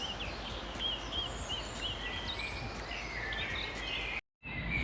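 Several birds singing and calling over a steady low background rumble, with a quick run of about six repeated high chirps in the first two seconds. The sound cuts out completely for a moment near the end.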